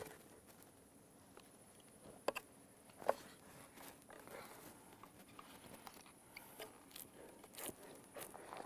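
A few faint clicks and knocks from a small wooden box being handled and opened, the clearest two a little under a second apart about two to three seconds in, over a quiet background hush.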